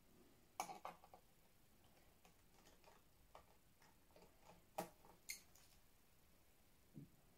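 Scattered light clicks and taps of small laptop screws and a screwdriver, as the screws come out of the bottom cover and are set down on a table. There are a few sharper clicks, about half a second in and near five seconds, with fainter ticks between them.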